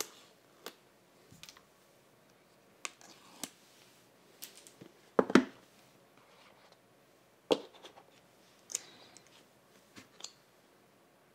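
Hands unboxing an iPhone 13 Pro Max, working the cardboard box: scattered clicks, taps and rustles as the seal tab on the back is pulled, the box is turned over and set down, and the lid is lifted off. The loudest knocks come about five seconds in and again about seven and a half seconds in.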